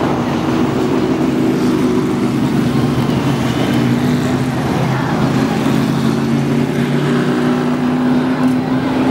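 Pro stock race cars' V8 engines running at a steady pace as the pack circles the oval, several engine notes overlapping with no big revving up or down.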